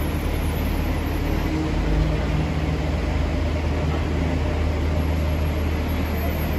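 Steady low rumble of an idling engine, with a faint hum above it.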